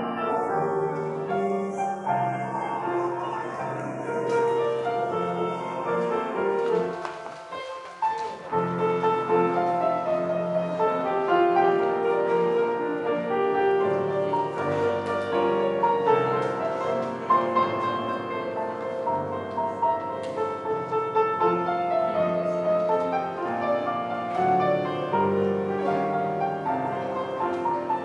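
Piano music, with a short lull about eight seconds in before it carries on.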